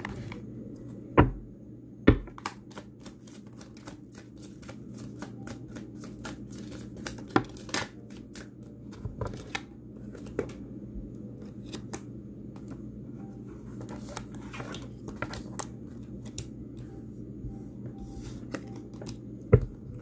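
A tarot deck being shuffled and handled by hand, cards flicking and clicking rapidly, thinning out in the second half. Two sharp knocks come just over a second and about two seconds in.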